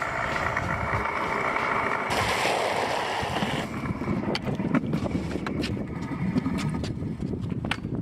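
Stunt scooter wheels rolling with a rumbling hum and wind on the microphone. From about halfway there are irregular sharp clacks and knocks as the scooter rides over deck boards.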